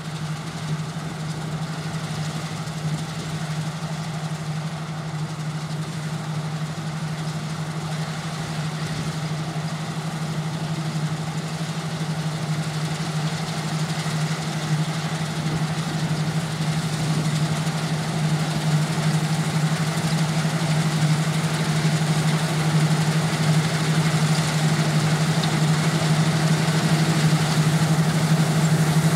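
Claas Lexion 460 combine harvester working in wheat, its engine and threshing gear running at a constant steady drone. It grows gradually louder as the machine comes closer.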